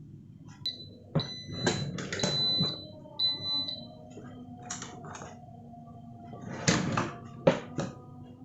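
Kitchen clatter: utensils, cookware and dishes knocking and clinking, several strikes leaving short, high metallic rings.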